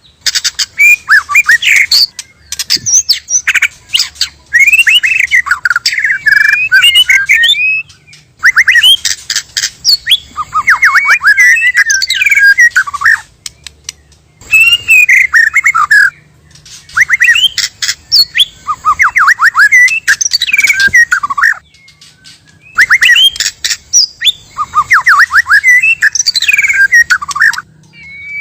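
White-rumped shama (murai batu) song: loud, varied phrases of rapid clicks, chirps and quick falling whistles, coming in bursts a few seconds long with short pauses between them.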